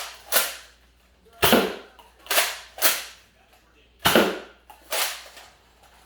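Nerf blasters shooting foam darts, about six sharp pops at uneven intervals.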